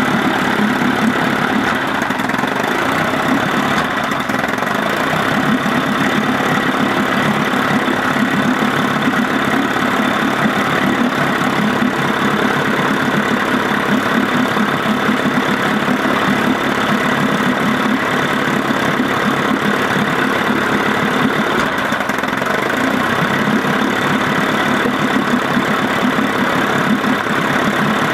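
1956 Evinrude 15 HP two-stroke outboard motor idling steadily.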